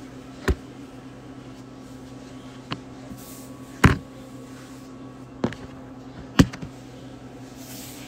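A phone being handled and moved, with five sharp knocks of the handset being bumped, the loudest about four and six and a half seconds in. Under them, a steady low electrical hum.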